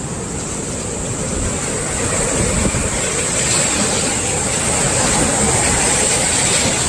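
Sea swell waves surging and breaking on the shore as a loud wash of surf noise, building about two seconds in and holding loud until near the end.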